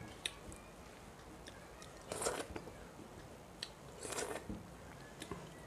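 A person eating rice and fish curry by hand from a steel plate: small clicks as the fingers work the food on the plate, and two short, noisy mouth sounds, about two and four seconds in, as mouthfuls are taken from the fingers.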